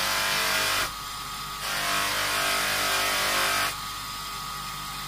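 Electric bench motor spinning a cloth buffing wheel on a spindle extension while a brass door handle coated in polishing paste is pressed against it. The hum of the motor runs steadily underneath a loud hiss of the work on the wheel, which eases off just before a second in, comes back for about two seconds, then eases again as the piece is lifted.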